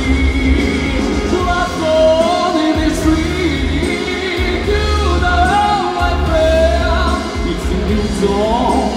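A male pop singer singing live into a handheld microphone over a pop backing with a heavy, pulsing bass beat, heard through a festival stage PA.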